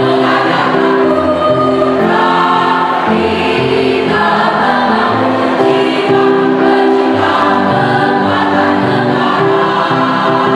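Mixed choir of women's and men's voices singing in harmony, holding long chords that shift every second or two.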